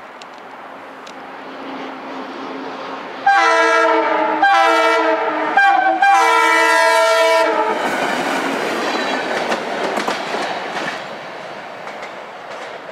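LIRR track geometry car TC82 approaching and sounding its S2M air horn in the grade-crossing pattern: long, long, short, long, over about four seconds. The horn is followed by the rumble of the passing car on the rails, fading near the end.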